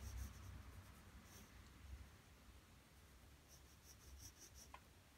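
Faint scratching of a graphite pencil hatching on drawing paper: runs of quick short strokes near the start, again about a second and a half in, and for about a second around four seconds in.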